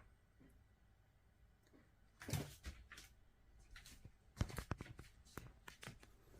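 A run of sharp knocks and clacks, starting about two seconds in, as the parts of a window air conditioner are handled and fitted into place.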